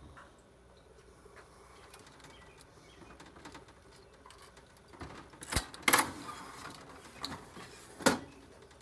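Hands handling and pulling apart server circuit boards and metal parts: faint clicks and ticks, then a handful of sharp knocks and clacks in the second half, the loudest two about a second apart.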